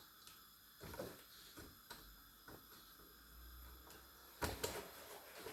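A few faint clicks and knocks from handling a sewing machine and its parts, with a faint low hum in the middle and the loudest knock near the end.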